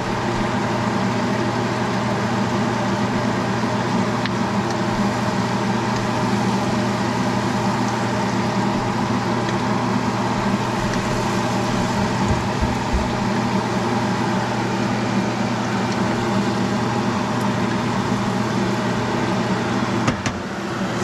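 Steady motor hum over a constant hiss, from a kitchen where vegetables are frying in a pan. There are a couple of sharp clicks of a utensil near the end.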